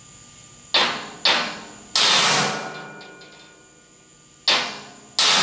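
Hammer striking a center punch on the sheet-steel top of a fuel tank. There are five sharp metallic blows, and the plate rings after each; the third blow, about two seconds in, rings longest. This punches the center mark where the torch's circle cutter will pivot.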